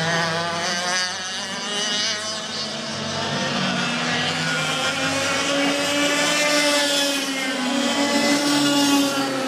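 Several 125cc two-stroke racing kart engines running out on the circuit, their pitches overlapping and rising and falling as they accelerate and lift off through the corners. In the second half one engine climbs steadily in pitch and becomes the loudest.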